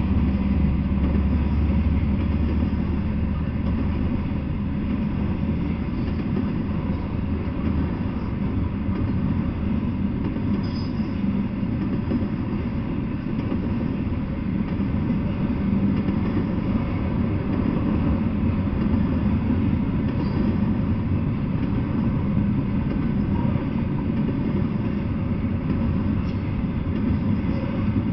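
Double-stack intermodal freight train cars rolling past on the rails, a steady rumbling wheel-and-rail noise. The deepest low rumble is strongest in the first couple of seconds, then eases to an even level.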